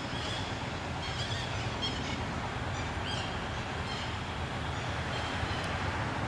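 Steady outdoor background rumble and hiss, with a few faint, short, high chirps in the first half.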